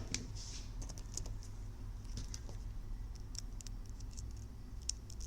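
Scattered light clicks and taps of small objects being handled on a workbench, over a steady low electrical hum.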